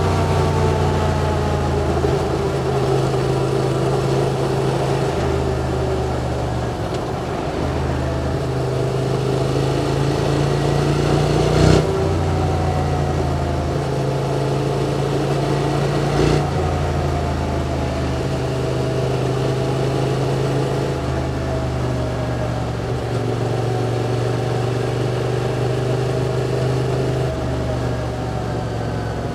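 QJ Motor SVT650X motorcycle's parallel-twin engine through an Arrow slip-on exhaust, heard from the rider's position on the move. The engine note rises and falls with throttle and steps in pitch with gear changes. There are two brief sharp knocks, about twelve and sixteen seconds in.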